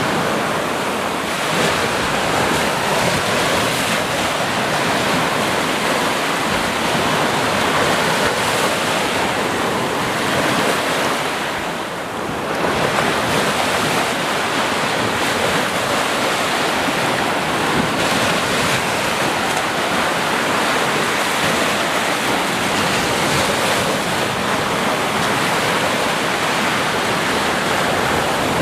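Sea waves breaking on a shore, a continuous rush of surf that eases briefly about twelve seconds in before swelling again.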